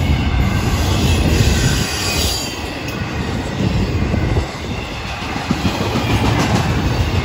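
Florida East Coast Railway intermodal freight cars rolling past at close range: a steady rumble of steel wheels on the rail, with some high wheel squeal about one to two seconds in.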